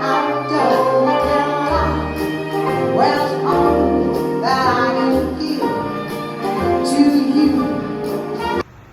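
Music with a singing voice; it cuts off abruptly near the end.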